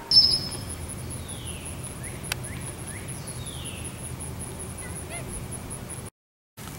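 Outdoor ambience beside woodland: a sharp click at the start, then a fast, steady high-pitched pulsing and two descending bird calls. The sound drops out for half a second near the end.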